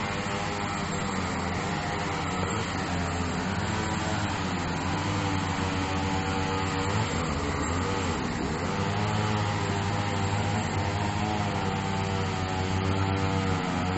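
Bulldozer's diesel engine working steadily, its pitch sagging and then picking up again about halfway through as the load changes.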